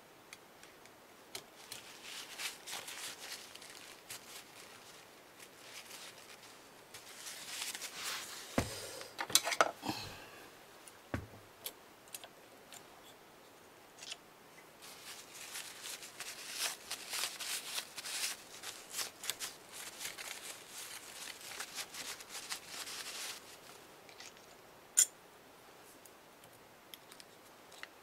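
Scratchy scraping and clicking of small metal parts on a Brother KH801 knitting machine carriage as old dirt is cleaned off them. The noise comes in spells, with a few loud clicks around nine to ten seconds in and one sharp click near the end.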